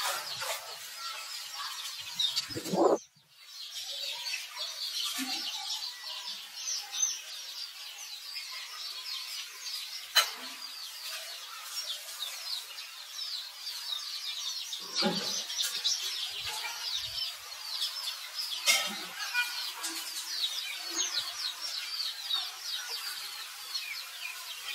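Many small birds chirping in a dense, continuous chorus, broken by a few sharp clicks and a brief dropout about three seconds in.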